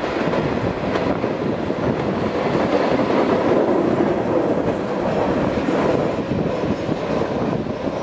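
A long freight train's cars rolling past steadily, the wheels running on the rails.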